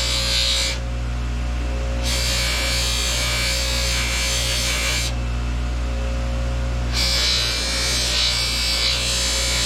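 Electric buffing wheel running with a steady motor hum, a reel part held lightly against it to polish it with blue compound. A hissing rub sounds whenever the part touches the wheel, for three long stretches broken by two pauses of a second or two.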